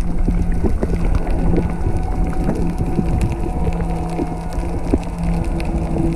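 Underwater sound through a camera housing: a low, steady motor hum carried through the water, dropping out briefly a few times, over a rumbling background with scattered clicks and crackles.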